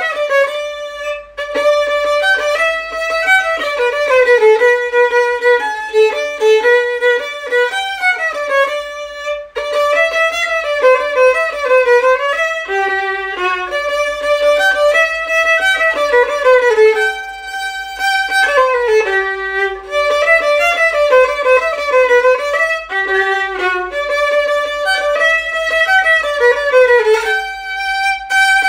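Background music: a violin playing a melody that moves in quick steps up and down, with no pauses.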